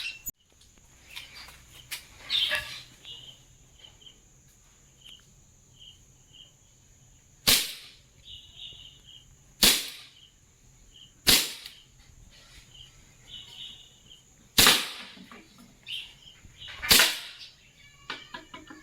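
Swiss Arms P92 CO2 blowback BB pistol firing five single shots, each a sharp crack, spaced one and a half to three seconds apart.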